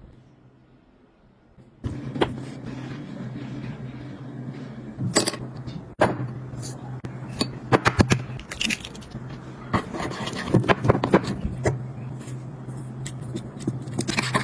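Kitchen food-prep handling: utensils and containers clicking, tapping and clinking at an irregular pace over a steady low hum, starting about two seconds in.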